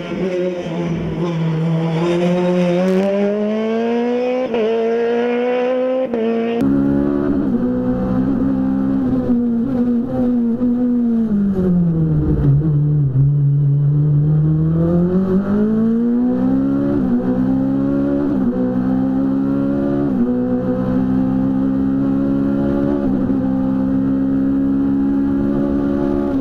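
Osella PA21 Evo sports-prototype race car engine at full racing revs, first heard from the trackside as the car drives by, then from on board. Its pitch drops as the car slows for a tight bend about halfway through, then climbs again with several gear changes.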